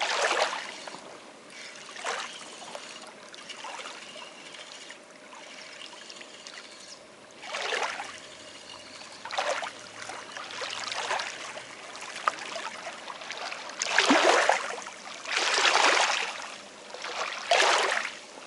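Water splashing and trickling in short irregular swooshes, each about a second long, several times over a low steady hiss.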